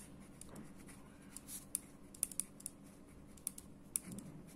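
Marker pen writing on paper on a clipboard: a quick, irregular run of short, sharp squeaks and taps as the letters are stroked out, over a faint steady low hum.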